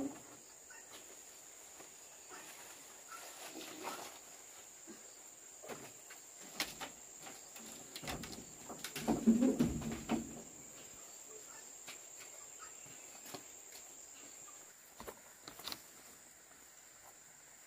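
A steady high-pitched insect trill that fades out about fifteen seconds in, with scattered light clicks and knocks and a louder jumble of noise around nine to ten seconds in.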